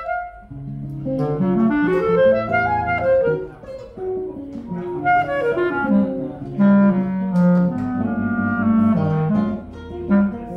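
Clarinet playing a choro melody over nylon-string guitar accompaniment.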